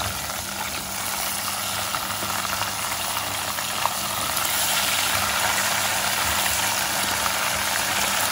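Flour-coated chicken pieces deep-frying in hot oil inside a wire frying basket: a steady sizzle that grows louder about halfway through as the oil bubbles up, over a low steady hum.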